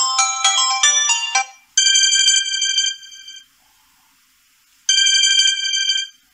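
Samsung Galaxy A41 preset ringtones: a quick run of bright bell-like notes ends about a second and a half in. A different ringtone follows, a held electronic chime sounding twice with about a second and a half of silence between.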